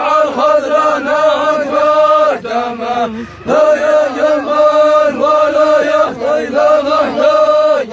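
Men chanting a Hadrami zamil verse, holding long drawn-out notes in phrases, with a short pause about three seconds in.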